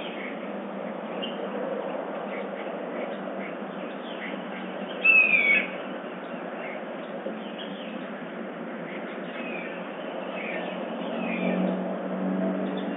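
Dawn chorus of wild birds: scattered short calls and chirps over a steady background haze, with one louder, half-second call sliding down in pitch about five seconds in. A lower, steadier sound builds near the end.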